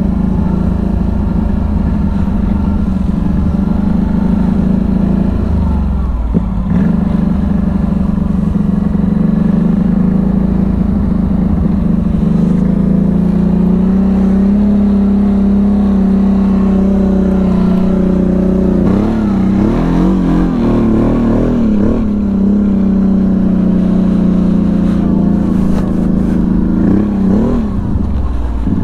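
CFMoto CForce 1000 ATV's V-twin engine running under way, a steady drone whose revs rise and dip a little now and then, wavering most about two-thirds of the way through.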